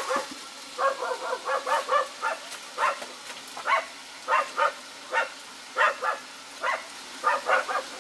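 A dog barking over and over: short barks in quick runs, about twenty in all. At the start the sizzle of frying drops down as the lid goes on the wok.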